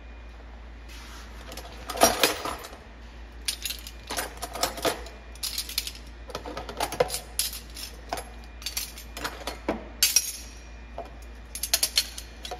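Metal cutlery clinking and rattling as spoons, knives and scissors are pulled one by one out of a plastic utensil caddy in a dish drying rack. The clinks come in irregular clusters, starting about a second in.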